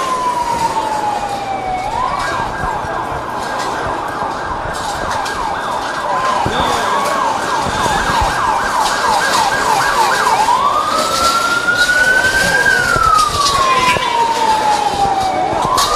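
Emergency vehicle siren over street commotion: a slow wail falling in pitch, switching about two seconds in to a fast yelp, then back to a slow rising and falling wail about ten seconds in.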